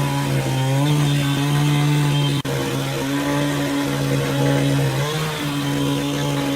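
Engine-driven saw running steadily while cutting wood, its pitch sagging and recovering slightly under load, with a sudden brief cut-out about two and a half seconds in.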